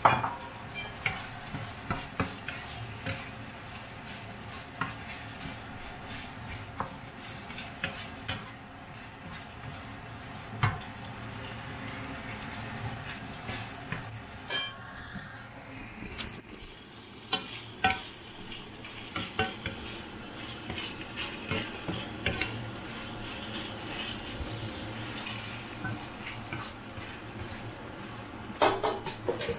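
Wooden spatula stirring chopped chicken and basil in a nonstick wok, with scattered scrapes and knocks against the pan over steady sizzling.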